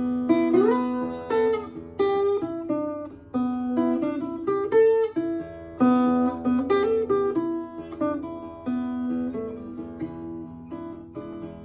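Solo acoustic blues played fingerstyle on an early-1950s Norwegian Leif Hansson guitar: plucked treble notes over ringing bass notes, with a few notes gliding upward.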